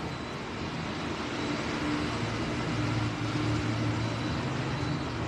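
Background road traffic: a steady rushing noise with a low engine hum that swells for a few seconds in the middle and then eases.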